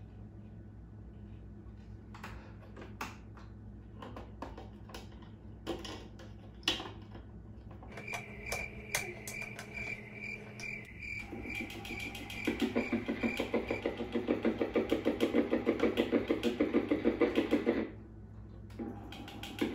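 Vintage Powertronic portable record player being tried with a 45: handling clicks and knocks first, then a fast rhythmic chatter from the player, about four or five beats a second, that cuts off suddenly near the end. The player will not run properly and does not play the record.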